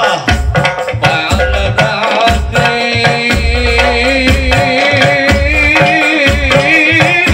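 Rebana frame drums and a tambourine beating a steady rhythm with deep bass strokes, with voices singing over them through a PA.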